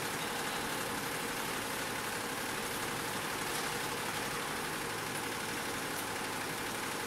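Butterfly ten-head, nine-needle commercial embroidery machine running at 750 rpm, stitching garments: a steady, even mechanical noise with a faint steady hum.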